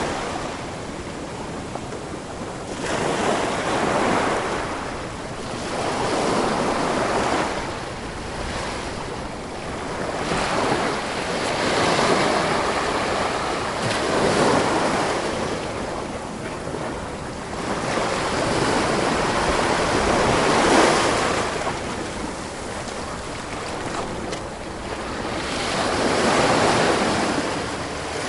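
Ocean surf: waves breaking and washing up a shore, the rush swelling and ebbing every few seconds.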